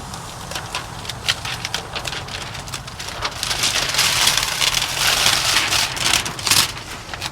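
Clear liner being peeled off window tint film: a dense crackling, rustling sound that grows louder and thicker about halfway through.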